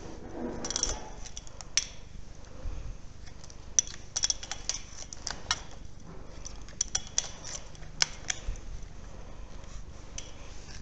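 Close handling noise from gear being set up: a string of sharp clicks and light metallic clatter as hands grip and work the metal legs of a camera tripod, busiest about halfway through.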